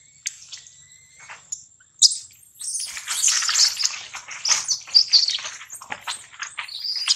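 Infant macaque screaming: a dense run of shrill, rapidly repeated squeals that starts about two seconds in, a baby monkey's distress cries.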